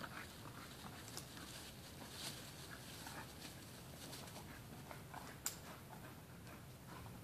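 A bulldog breathing hard, faint, with scattered small rustles and ticks and one sharp click about five and a half seconds in.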